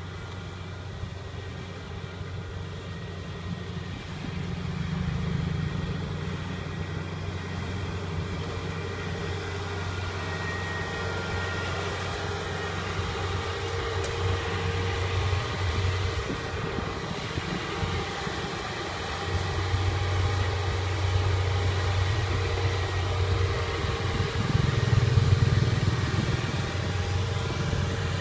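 Kubota DC70 tracked combine harvester's diesel engine running steadily as it drives across the field, getting louder as the machine comes close near the end.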